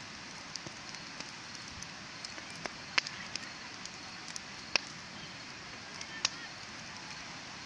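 Wood bonfire burning: a steady hiss of flames with scattered crackles and sharp pops, three louder pops about three, five and six seconds in.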